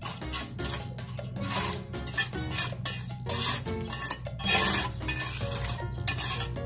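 Steel pointing trowel scraping and pressing cement-and-sand grout into the joints between cement tiles: a run of uneven, rough scrapes.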